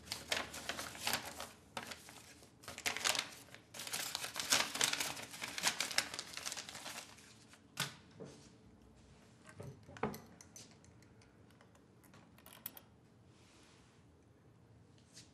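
Sheets of paper rustling and crinkling in the hands for about seven seconds, followed by a few separate clicks and knocks from a locker door and its key lock.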